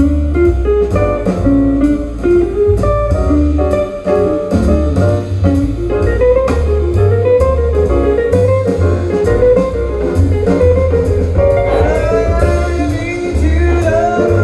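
A jazz record playing through large horn loudspeakers in a listening room: an instrumental passage with guitar over double bass and drums, heard with the room's sound.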